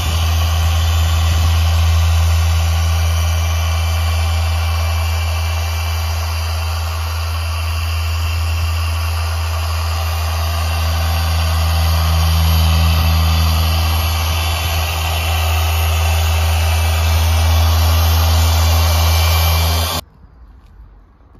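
Rupes Bigfoot dual-action polisher running steadily with a low hum, buffing a gloss black car panel with a small pad. It cuts off suddenly near the end.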